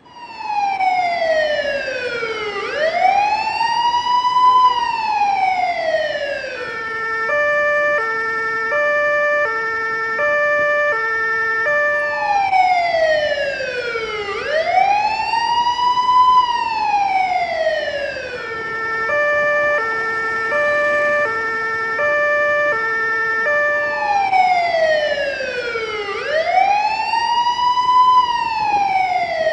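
Police car siren, repeating a cycle three times: a wail that sweeps down, back up and down again over about six seconds, followed by a two-tone hi-lo that alternates for about five seconds.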